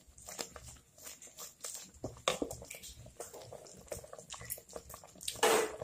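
Cream sauce of evaporated milk and cream simmering in a pot as a wooden spatula stirs it, with scattered small pops and clicks of bubbling and stirring. A short louder rush of noise comes near the end.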